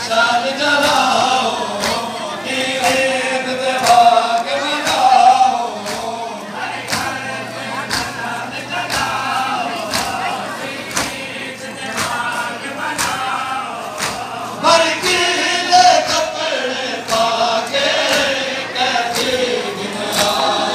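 Many men's voices chanting a melodic recitation together, with a regular beat of sharp thumps running under it.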